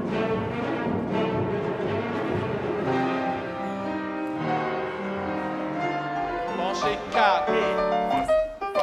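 Classical-style theme music with piano and strings: held, layered chords, then a quick run of notes and shorter piano notes near the end.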